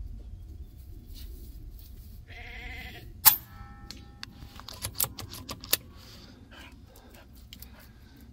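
Daystate Huntsman Revere .22 PCP air rifle fired once with a moderator fitted: one sharp shot a little over three seconds in, the loudest sound, followed by a few sharp clicks from the rifle's action. Just before the shot, a short wavering call sounds in the background.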